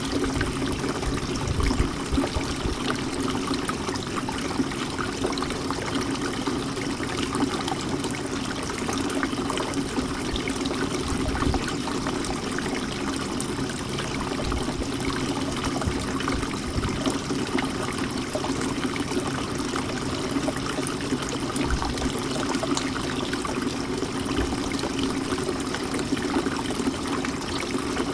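Bird bath fountain running: a steady, continuous trickle and splash of water falling into the basin.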